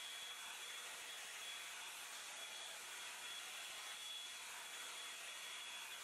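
Hot Tools Pro One Step Blowout hot-air brush running steadily: an even rush of blown air with a thin high motor whine, as the round brush is drawn through a section of hair.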